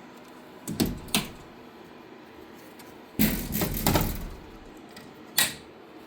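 A few sharp clicks and knocks: two about a second in, a rattling cluster around three to four seconds in, and one more near the end, over a faint steady hum.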